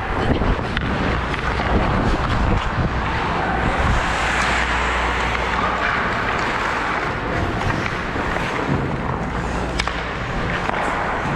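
Ice skate blades carving and scraping on rink ice during play, over a steady low rumble, with a few sharp clicks of sticks or puck on the ice, most of them near the end.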